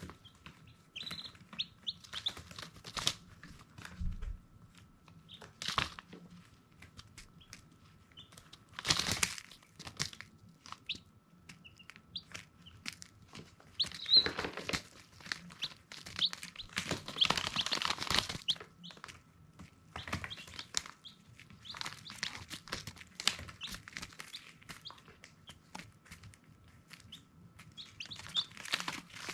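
Baby chicks peeping in short, scattered high chirps, with several louder bursts of rustling among them.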